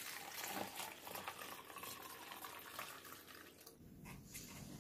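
Blended sweet-potato liquid poured from a glass blender jug through a metal mesh strainer into a watering can: a faint, steady pouring trickle that eases off near the end.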